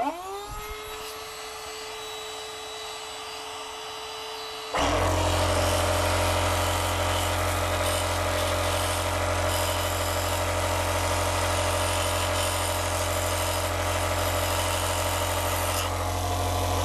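Electric kite pump (air inflator) motor spinning up with a quickly rising whine, then running steadily as its narrow nozzle blows drilling dust out of a hole in a concrete slab. About five seconds in the sound suddenly gets much louder and rougher, with a low hum.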